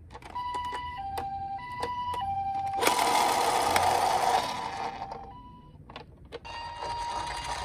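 Toy ambulance's electronic two-tone siren, a Japanese-style 'pee-po' alternating between a higher and a lower steady note about every half second. A loud rushing noise covers it in the middle, and the siren resumes near the end.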